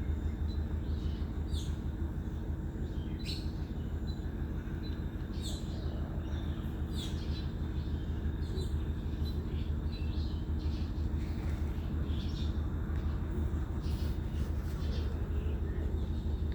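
Diesel engine of a 200 kVA generator running at a steady speed, a constant low hum, while small birds chirp repeatedly over it.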